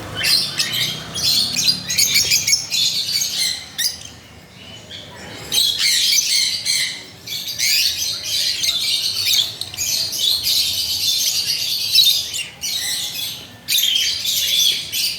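A group of caged small parrots chattering and squawking continuously, shrill and busy, with brief lulls about four seconds in and again near the end.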